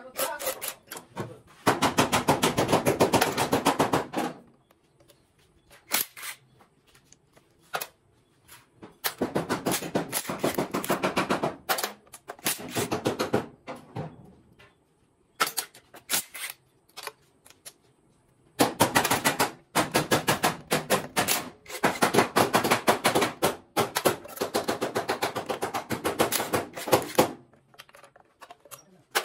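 Cordless impact wrench hammering in repeated bursts of rapid rattling, the longer ones a few seconds each with short blips between, as it spins off bolts on the intake manifold of a Mitsubishi T120SS engine being stripped down.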